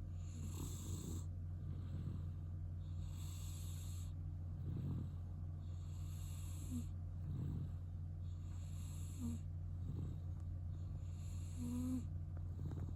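Sleeping cat breathing through a congested nose and snoring, one breath about every two and a half to three seconds, with a few short squeaky nasal whistles in the second half. The noisy breathing comes from chronic rhinitis left by cat flu.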